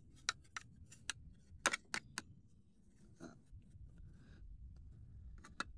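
Makeup brush stirring powdered soft pastel in a small clear plastic box: irregular light clicks and taps as the brush knocks against the plastic, with faint scratching of the bristles through the powder.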